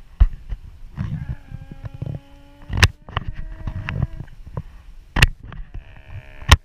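A man yelling in long, drawn-out shouts without words, the pitch held steady for several seconds, then a second shorter yell near the end. Several sharp knocks cut through, the loudest about three seconds in.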